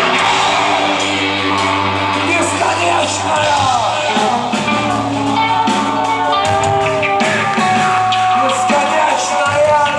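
A live rock band playing loudly, with singing over the band.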